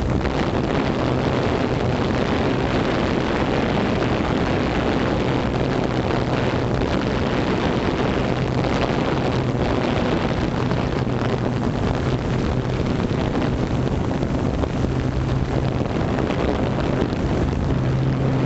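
FPV drone's motors and propellers running steadily, heard through its onboard camera: a steady low hum under a dense rush of wind on the microphone.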